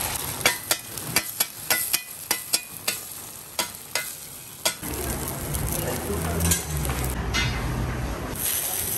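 A metal spatula strikes and scrapes a flat iron griddle about a dozen times in quick, uneven succession, over the sizzle of quail eggs frying. From about halfway through, the strikes stop and a steady low hum with background noise takes over.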